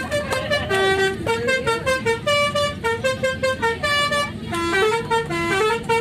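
Bus telolet horn, a set of musical air horns sounded in sequence, playing a quick tune of short notes that step up and down in pitch.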